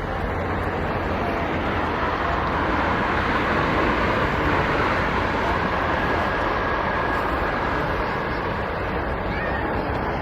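Jet aircraft engines running: a steady, unbroken rush of noise with a faint high whine about halfway through.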